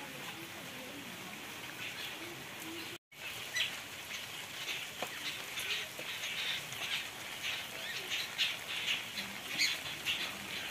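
A group of sparrows chirping in many short, quick calls over the steady hiss of rain. The sound cuts out briefly about three seconds in.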